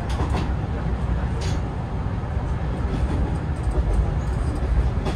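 Hanshin 9000 series electric train running, heard from inside the leading car: a steady low rumble of wheels on rail with a few sharp clicks.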